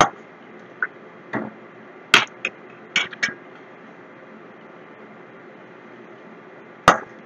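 Metal ladle clinking and knocking against a steel kadai while fried bondas are lifted out of the oil: a sharp clink at the start, a quick run of knocks about one to three seconds in, and one more clink near the end, over a steady hiss.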